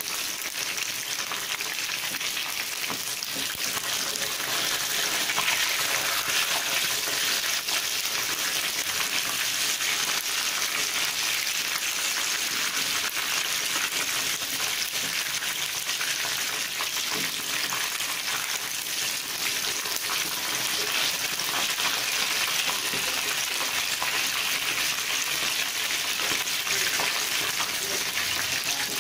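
Coated chicken wings deep-frying in hot oil on their second fry: a steady, dense crackling sizzle. The sizzle is the sound of water still cooking out of the wings; by the cook's own rule they are done only when it dies away.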